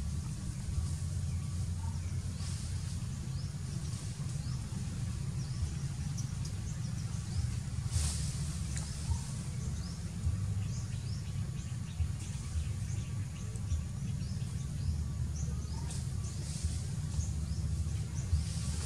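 Outdoor ambience: a steady low rumble with many faint, short bird chirps scattered through it, and one brief louder noise about eight seconds in.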